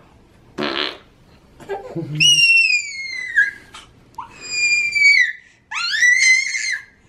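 A baby squealing with delight: three high-pitched squeals, each falling in pitch, starting about two seconds in. Just before them, a short wet blowing raspberry against the baby's neck.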